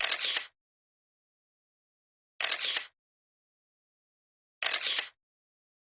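Three short bursts of hiss-like noise, each about half a second long and about two seconds apart, with dead silence between them.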